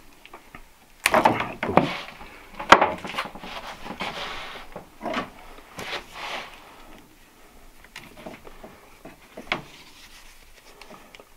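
Handling noises from stripping a house-wiring cable and picking up tools: rustling and scraping, with several sharp clicks and knocks. The loudest click comes a little under three seconds in.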